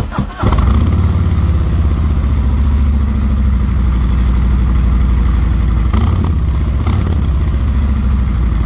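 Cold start of a 2022 Harley-Davidson Street Glide Special's Milwaukee-Eight 107 air- and oil-cooled V-twin: the starter cranks briefly, the engine catches about half a second in and settles into a steady, loud idle with a deep, pulsing rumble through the stock dual exhaust.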